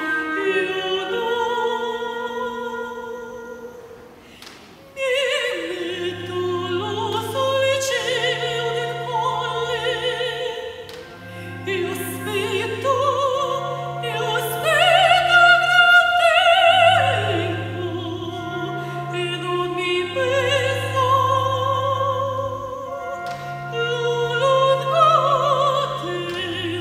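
Opera singing with a wide vibrato over an orchestral accompaniment. The music fades down about four seconds in, then comes back in at about five seconds with a low bass line of held notes under the singing.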